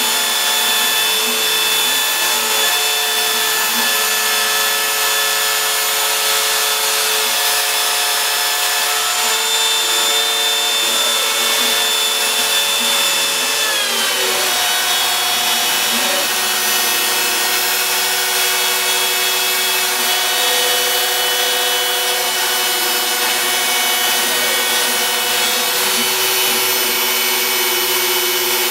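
Router spindle of a home-built CNC machine running steadily while it cuts a shallow pass in MDF, its whine dipping in pitch about halfway through. Short rising and falling whines from the stepper motors come and go as the axes move.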